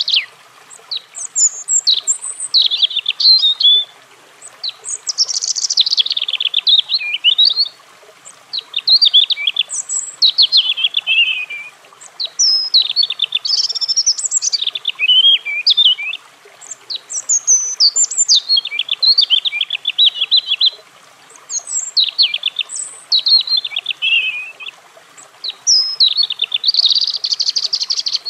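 European robin singing: a run of high, rapidly varying warbled phrases, each lasting a few seconds, separated by pauses of about a second.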